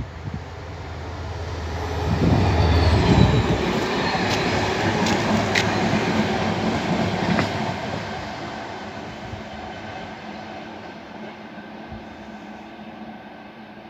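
A train passing beneath a railway footbridge. Its low rumble builds to a peak about two to three seconds in, with a few sharp clicks in the middle, then slowly fades as the train moves away.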